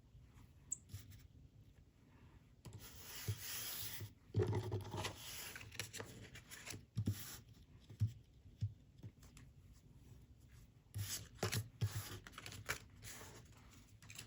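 Paper and packaging being handled: stretches of sliding and rustling with scattered light taps and clicks, the longest rustle a few seconds in and another run of it near the end.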